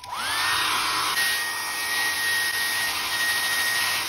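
Small handheld hair dryer switched on and blowing on a glass bottle's label: a rush of air with a motor whine that rises quickly as it spins up, then holds steady.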